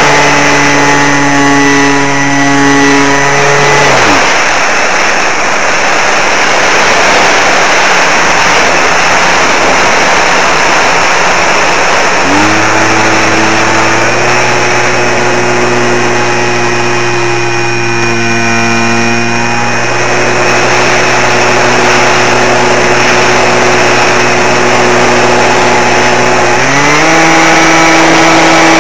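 Electric motor and propeller of an RC model aircraft whining steadily over heavy wind rush. About 4 s in the motor is throttled off and winds down, leaving only the wind. It comes back on about 12 s in and is throttled up again near the end.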